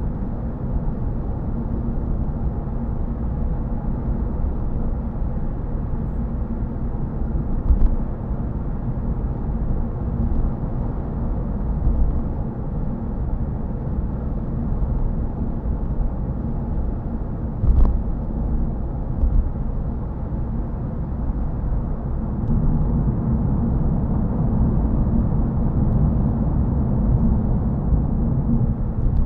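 Cabin road noise inside a Toyota Yaris GR Sport cruising at 50 mph on cruise control along a dual carriageway: a steady, low tyre-and-road rumble. There are two short thumps, about 8 and 18 seconds in, and the rumble gets a little louder for the last several seconds.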